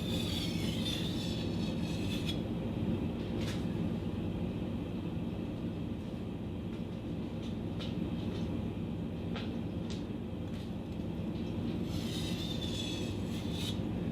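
Katana blade being drawn back and forth across a wet 1000-grit Shapton Kuromaku water stone, a continuous grinding scrape, with brighter, scratchier strokes during the first couple of seconds and again near the end. The edge is being ground to remove a rolled section.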